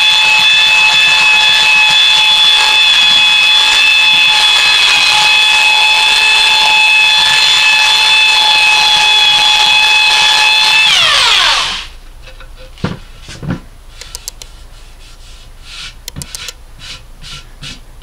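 Ryobi belt sander running with a steady high whine as it sands a poplar and alder end-grain board. About eleven seconds in it is switched off and its pitch falls as it spins down. After that come a few light knocks and a hand rubbing over the sanded wood.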